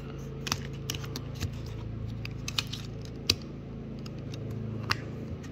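Scattered sharp plastic clicks and taps: the battery cover of a Samsung SCH-R430 flip phone being snapped back on and the phone handled, over a steady low hum.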